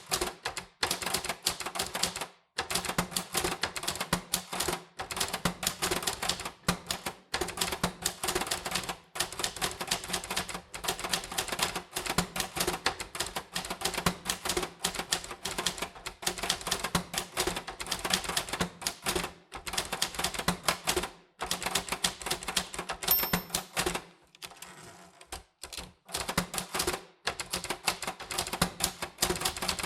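Typewriter keys striking in quick, continuous runs of clicks, with brief pauses about two seconds in and a longer lull near the end.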